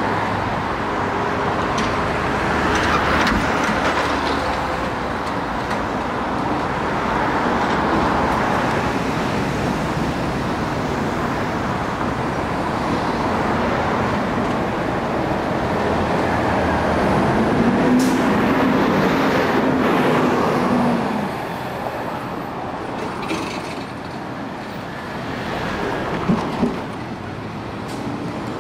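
City street traffic: buses, cars and trucks passing with engines running. A steady engine note stands out about two-thirds of the way through, and two quick knocks come near the end.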